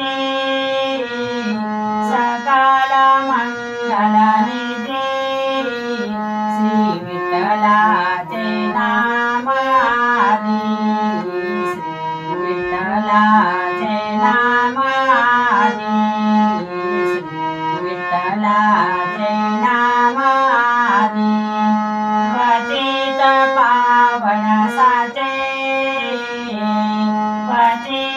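Harmonium playing a devotional abhang melody: reedy held notes stepping up and down over a steady low drone, with a woman's singing voice joining at times.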